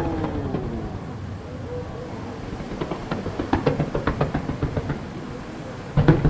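Aerial fireworks: a quick run of crackling pops lasting about two seconds, then a loud bang near the end, over a low rolling rumble.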